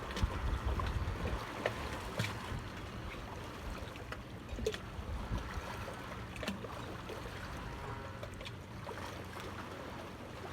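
Outdoor ambience of water and wind: a steady rushing, with gusts of low rumble on the microphone at the start and scattered small clicks.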